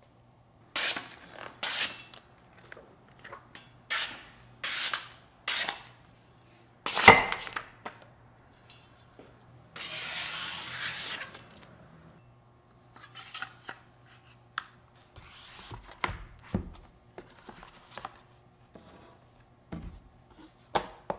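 Hands unboxing a kitchen knife: a run of short rustling swipes, then one sharp knock with a short ring about seven seconds in. Near the middle comes nearly two seconds of continuous tearing and crinkling of the paper wrapping as the knife is pulled free. After that come scattered light taps and rustles of cardboard packaging.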